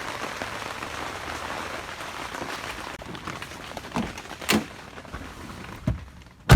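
Steady rain falling on a portable fabric garage shelter. A few knocks come about four to six seconds in, then a car door shuts with a heavy thump near the end, and the rain sound drops away.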